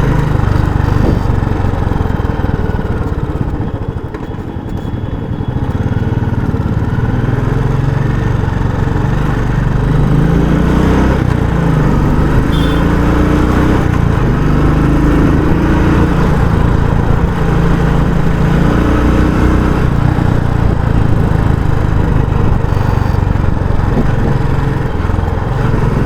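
Royal Enfield Classic 350's single-cylinder engine running through its stock exhaust while being ridden. It eases off briefly about four seconds in, then rises in pitch several times as the bike accelerates.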